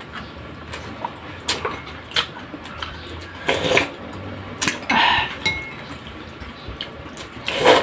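Cutlery clinking and scraping against bowls and plates during a meal: scattered light taps, one with a short ring about five and a half seconds in.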